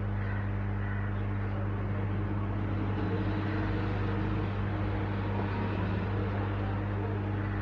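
Steady low electrical hum at the mains frequency and its overtones, with a faint hiss, from the powered fridge-board test setup.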